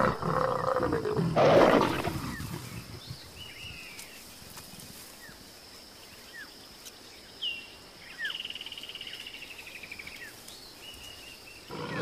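A mating pair of leopards growling and snarling: loud, harsh growls for the first two seconds, dying away, and another snarl starting near the end. In the quiet between, birds chirp and whistle, with one longer trill.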